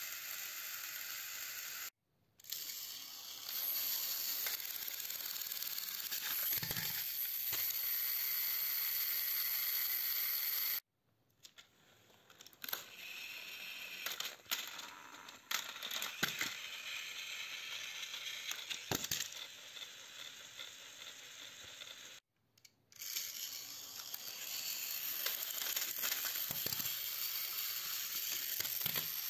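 Battery-powered plastic toy trains running on plastic track, their small geared motors giving a steady high whir, with a few sharp clicks and knocks of plastic. The sound cuts out briefly three times.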